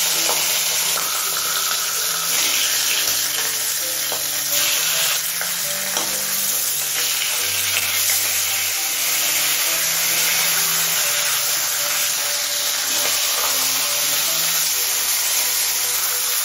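Hilsa fish heads frying in hot mustard oil in a kadai: a loud, steady sizzle, with soft background music underneath.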